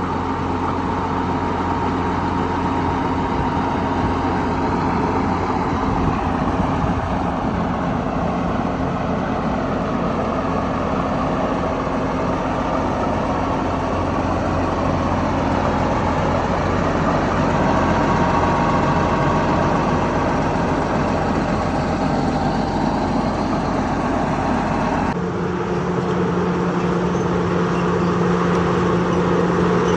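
Bulldozer's diesel engine running steadily with a low, even drone. About 25 seconds in the engine note changes abruptly to a different steady pitch.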